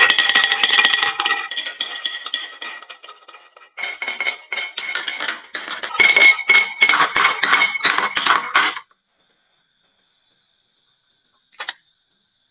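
Marbles clattering down a wooden marble-run slope, a fast, dense rattle of clicks and knocks. It stops suddenly about nine seconds in, with one short clatter near the end.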